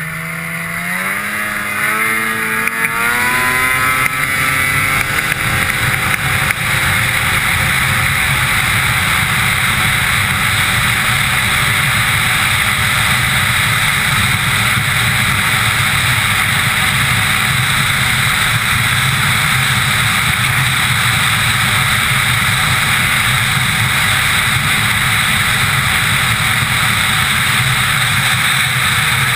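2003 Ski-Doo MX Z Renegade 800 snowmobile's two-stroke twin accelerating hard, its pitch climbing over the first few seconds, then holding a steady high-speed note under a loud rush of wind. Near the end it begins to ease off and the pitch drops.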